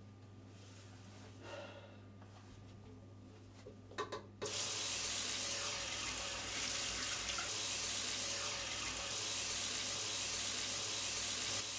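Bathroom sink faucet running steadily into the basin, starting about four seconds in right after two short clicks; before that it is nearly quiet.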